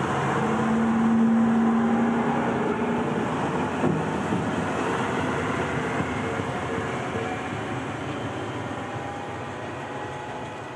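Diesel track maintenance motor car running past over the rails, loudest early on and fading as it pulls away. A level crossing alarm rings in short repeated tones and stops partway through.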